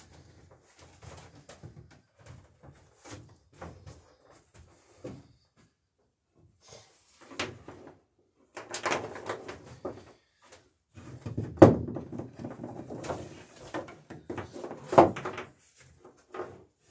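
Scattered knocks, bumps and clatter of tools and wood being handled and moved about in a small wooden workshop. It is quiet at first, then louder from about halfway, with two sharp knocks standing out in the second half.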